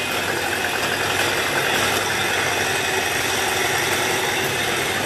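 Electric hand mixer running steadily, its beaters whisking eggs in a glass bowl.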